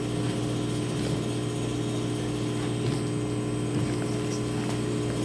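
Steady low hum of a large room's background machinery, with a few faint taps.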